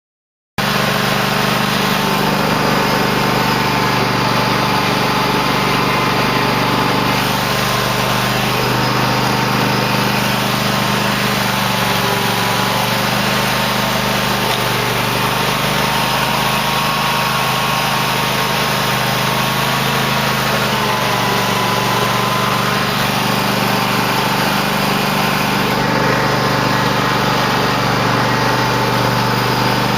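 Engine of a 2008 Cub Cadet LT1050 lawn tractor running steadily while plowing snow, its pitch dipping and rising slightly a few times. The sound cuts in abruptly about half a second in.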